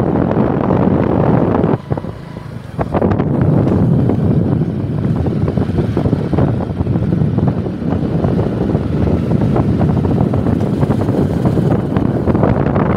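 Heavy wind buffeting on the microphone of a phone carried on a moving two-wheeler, easing briefly about two seconds in.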